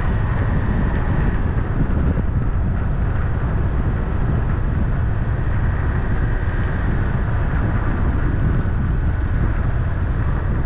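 Steady road noise of a moving car: low tyre rumble and engine drone, even throughout with no sudden sounds.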